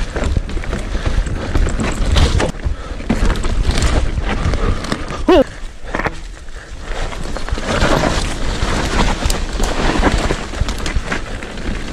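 Electric mountain bike riding fast down a dirt forest trail: tyre roar and crunch over dirt and leaves, the bike rattling and knocking over roots, with wind rumble on the microphone. A short squeal about five seconds in.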